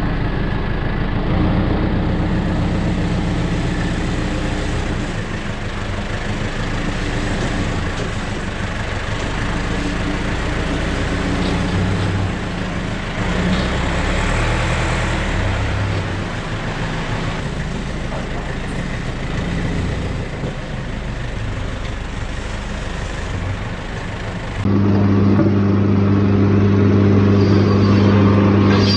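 Engine-driven machinery running steadily, its pitch wavering a little. About three-quarters of the way through it switches abruptly to a louder, steadier hum.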